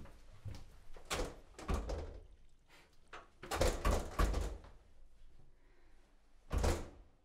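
A couple of steps up to a front door, then the handle is rattled and the locked door is shaken against its lock, in a cluster of knocks and rattles about three and a half seconds in and one more knock near the end.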